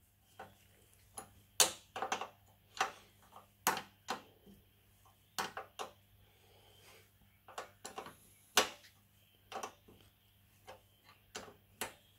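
Sharp metallic clicks and ticks, about twenty of them spaced irregularly, from a small 11 mm wrench being worked on the fuel-line fitting of a Briggs and Stratton engine's carburetor.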